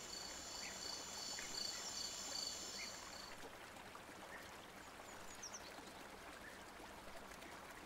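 Faint night insects chirping in a steady pulsing rhythm, about two to three chirps a second, over a soft even hiss. The chirping stops about three seconds in, leaving the hiss and a few short high chirps.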